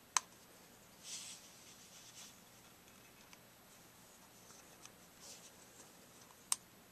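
A handheld USB digital microscope being handled and adjusted: a sharp click just after the start and another near the end, with faint, soft rubbing noises between.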